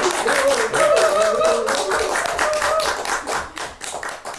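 Small audience clapping and cheering at the end of a song, with voices calling out over the applause; the clapping thins out near the end.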